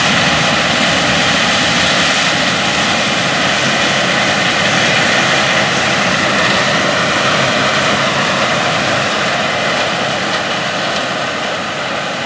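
Claas 7500 Terra-Trac combine harvesting corn with a 12-row chopping corn head, running under load: a loud, steady machine noise with several high whining tones, fading slightly near the end.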